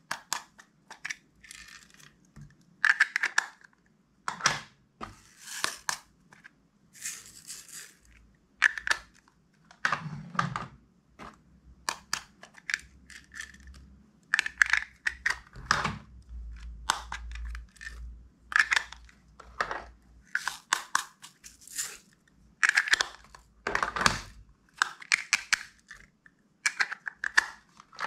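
Clear, glossy slime being squished, folded and stretched by hand, giving irregular wet clicks, pops and crackles as air pockets burst.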